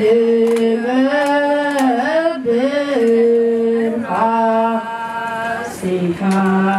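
A choir singing a mezmur, an Ethiopian Orthodox hymn, in unison: long held notes with a few ornamented turns in the melody, stepping down to a lower held note near the end.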